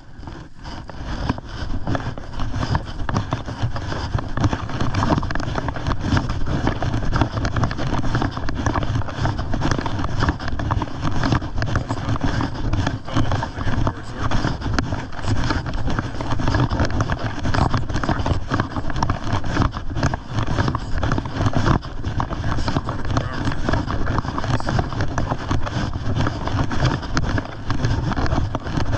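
Tall dry grass and weeds rustling and swishing against legs and a body-worn camera, with footsteps, as a person walks briskly through an overgrown field; a steady crackling rustle over a low rumble.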